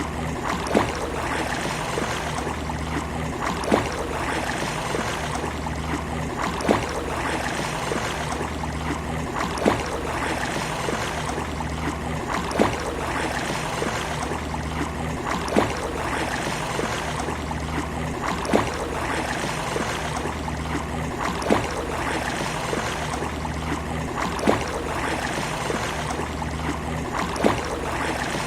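Sea water washing steadily on a beach, with a short sharp click about every three seconds. The whole pattern repeats evenly on that beat.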